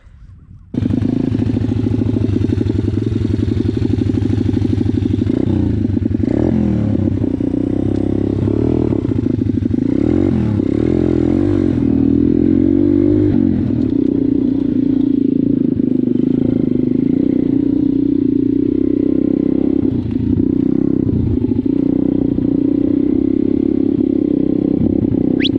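125cc motocross bike engine running as it is ridden over rough grassy ground, its pitch rising and falling with the throttle. The sound starts abruptly just under a second in.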